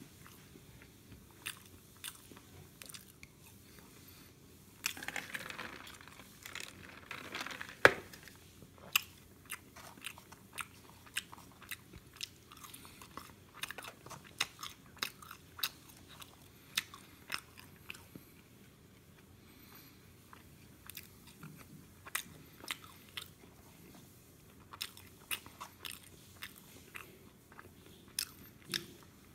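Close-up mouth sounds of someone eating McDonald's french fries: chewing with many short wet clicks. About five to eight seconds in there is a louder stretch of noise that ends in one sharp click.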